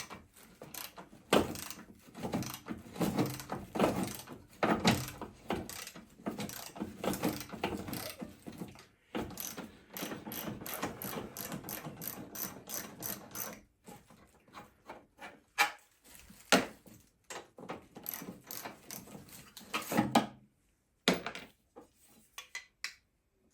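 Hand ratchet spanner clicking in quick runs as the bolts of a car's front wing are undone, the clicks thinning out in the second half with a few louder knocks.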